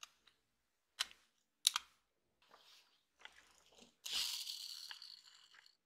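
Plastic parts of a toy model car being handled and pressed together: two sharp clicks in the first two seconds, then plastic scraping and rubbing, loudest and longest near the end.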